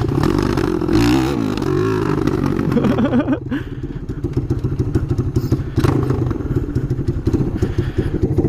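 Old Harley-Davidson build's engine running as the bike rolls along, its pitch wavering up and down, then about three seconds in it falls to an uneven, loping idle. The rider says the engine needs a carb adjustment.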